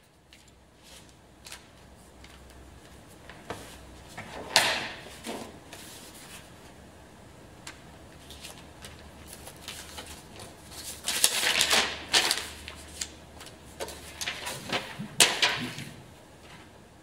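Sheets of paper rustling and sliding as they are handled and laid on the bed of a small etching press, with scattered light knocks and taps. The loudest bursts come about four and a half seconds in, in a longer stretch past the middle, and again near the end.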